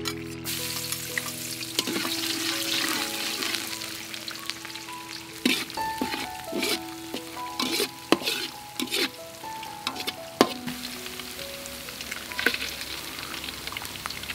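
Hot oil sizzling in a metal pan as a minced ingredient fries in it, with a run of sharp knocks and scrapes against the pan between about five and ten seconds in.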